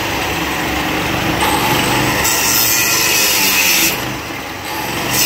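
Corded power saw cutting into a steel ventilation-shaft grate. It grows harsher and louder about two seconds in, eases off briefly around four seconds, and picks up again near the end.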